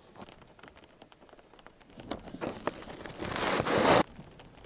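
Rain pattering, with scattered sharp ticks of drops. About two seconds in, a rush of noise swells up, then cuts off suddenly near the end.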